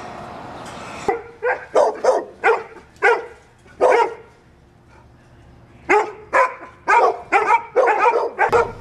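Dog in a chain-link shelter kennel barking: about six sharp barks, a pause of nearly two seconds, then a quicker run of barks.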